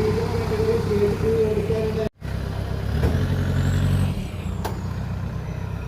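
Off-road 4x4 engine running and revving, with a short complete dropout about two seconds in, then a stronger low engine note.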